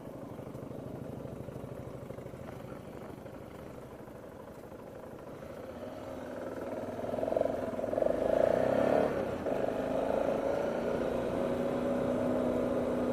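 A vehicle running at road speed: a steady engine hum with road noise. It grows louder about halfway through, and a steady drone settles in near the end.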